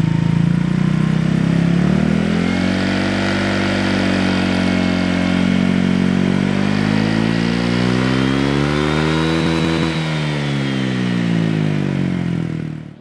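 Honda Vario 125 scooter's single-cylinder engine running and being revved: the pitch rises a little a couple of seconds in, then climbs in a long smooth sweep that peaks late and falls away, and the sound cuts off suddenly at the end.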